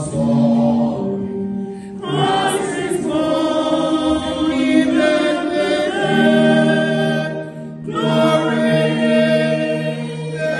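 Small church choir singing a hymn in several parts, in sustained phrases with short breaks for breath about 2 and 8 seconds in.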